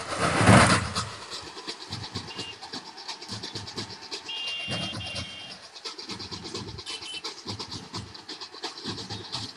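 Street crowd noise: a loud burst of cheering fades within the first second into a general din, with a short high horn tone held for about a second, about four seconds in, and a shorter one near seven seconds.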